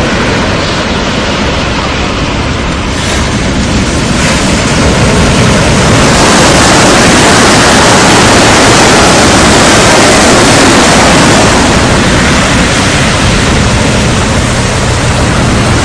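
Strong wind buffeting the microphone over waves breaking on a beach: a loud, even rush of noise that grows louder about six seconds in and eases a little near the end.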